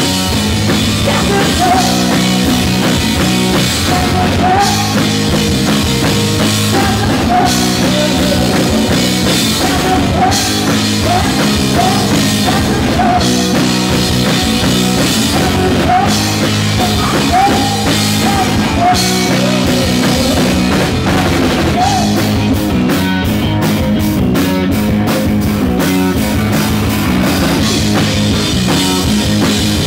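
Live rock band playing loud: electric guitar over a drum kit, with a run of rapid drum hits about two-thirds of the way through.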